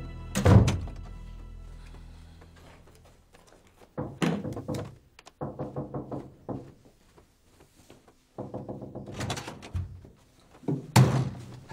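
Music fades out, cut by a loud thump about half a second in. Scattered short knocks follow, and a second loud thump comes near the end.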